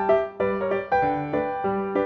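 Piano music, notes played in quick succession.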